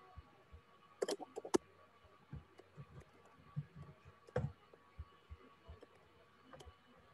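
Computer keyboard keys clicking in scattered strokes as a command is typed, with a quick run of keystrokes about a second in.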